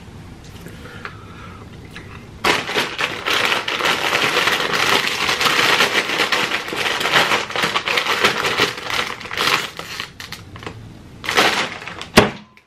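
A foil snack-chip bag crinkling loudly as it is handled and shaken, for about nine seconds, starting a couple of seconds in. A single sharp crack comes near the end.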